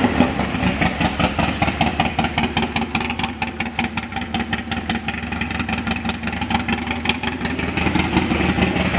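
Harley-Davidson Sportster Iron 1200's air-cooled V-twin idling with a steady pulsing beat, through an aftermarket two-into-one performance exhaust that makes it loud.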